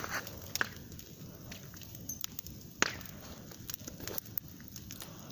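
Campfire crackling: irregular sharp snaps and pops, the loudest about three seconds in.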